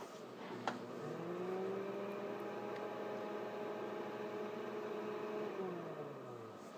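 A blender motor clicks on, spins up in pitch, runs steadily for several seconds, then winds down near the end. It sounds muffled, as if heard through a wall.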